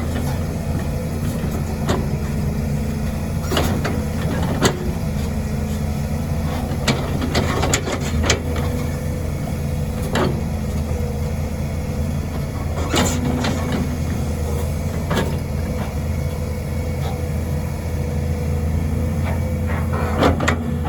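Volvo EC210B crawler excavator's diesel engine running steadily under work, with about a dozen sharp knocks and clanks scattered through it.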